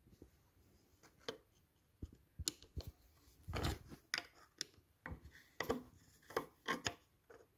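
Screwdriver tip clicking and scraping against the drain screw of a Honda GL1100 carburetor float bowl: a string of short, irregular clicks and scrapes that come thicker after the first couple of seconds.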